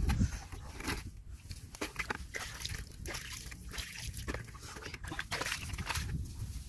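Water sloshing and splashing in a plastic bucket as muddy eggs are rinsed by hand, a run of small splashes and knocks.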